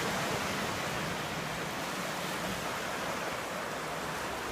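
Steady wash of ocean surf breaking on a beach, an even rushing noise with no distinct events.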